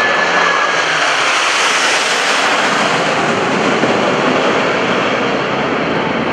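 Steady, loud jet roar from a formation of six twin-engine F/A-18 Hornet fighters flying overhead, with a thin high whine fading out in the first second.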